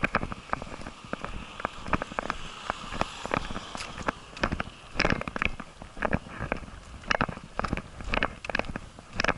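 Irregular sharp clicks and knocks, several a second, over a faint steady hiss.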